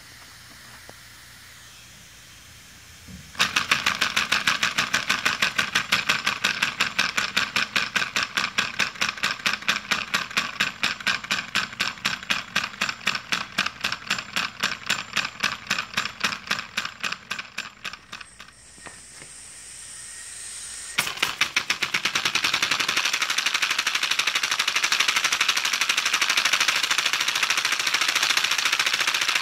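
Homemade compressed-air engine with a brass cylinder and valve, running on a hose air supply: after a faint hiss it starts suddenly about three seconds in with a fast, even beat of air pulses. The beat slows and dies away near the middle, a high hiss of air follows for a couple of seconds, and then it picks up again, faster than before.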